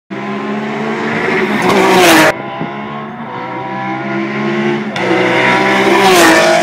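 Race car passing at high speed, its engine note rising to a peak and then dropping in pitch as it goes by. The sound cuts off abruptly about two seconds in, and a second pass-by at about 185 km/h builds to a peak near the end.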